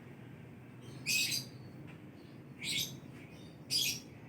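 Domestic cat purring steadily in a low, even rumble, while three short, high bird chirps stand out over it about one, two and a half, and nearly four seconds in.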